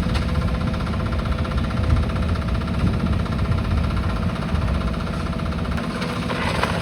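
Diesel engine of a demolition excavator running steadily, with a heavy low rumble.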